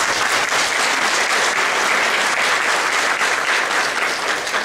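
A church congregation applauding, a dense, steady clapping with no single claps standing out.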